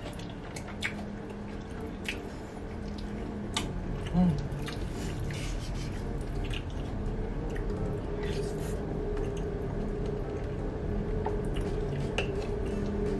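Close-up wet mouth sounds of a person eating stringy, cheese-covered rice porridge: scattered sticky clicks and smacks from chewing and from the wooden spoon, with one louder smack about four seconds in.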